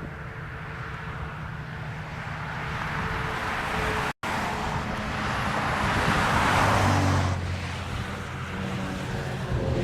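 A moving car's engine and road noise, with a hiss that swells about five to seven seconds in. The sound cuts out completely for an instant about four seconds in.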